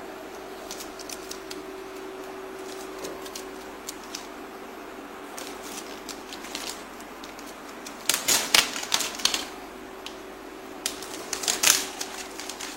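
Cutting or drilling out the marked holes in a sheet-metal electrical panel. Scattered sharp clicks over a faint steady hum, then two bursts of rapid metallic clattering, each about a second long, around eight and eleven seconds in.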